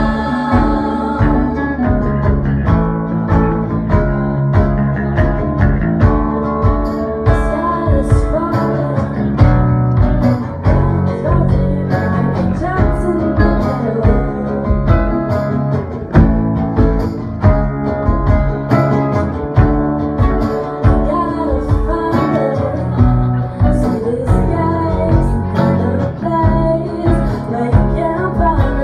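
Live rock band playing a song: a singer's voice over guitar and drums, with steady drum hits.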